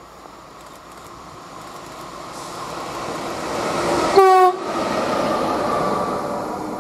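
Bombardier TRAXX class 186 electric locomotive running light past, its rumble building up and then fading away. About four seconds in it gives one short horn blast, the Rp1 'attention' warning signal, which is the loudest sound.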